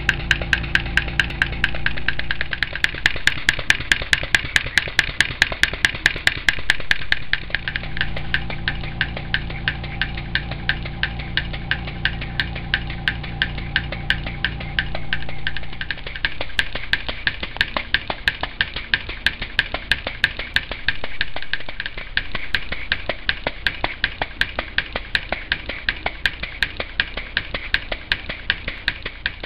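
Stuart Models 10V vertical steam engine running steadily on compressed air, its exhaust beating in an even rhythm of about three beats a second. A low steady hum underneath stops about halfway through.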